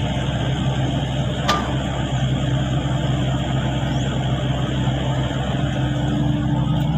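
Sany excavator's diesel engine running steadily, with a single sharp click about a second and a half in and a higher steady whine joining near the end.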